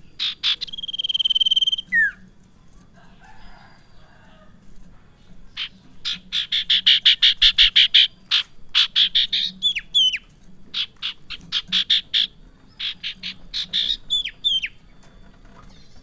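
Common iora (sirtu) singing vigorously: a long steady whistle about a second in that ends in a downward slide, then fast runs of sharp repeated notes, about eight a second, broken by short down-slurred whistles.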